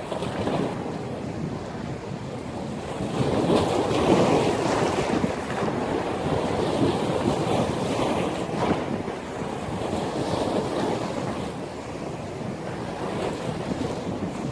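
Sea waves surging and breaking, with strong wind blowing on the microphone. The surge is loudest about four seconds in.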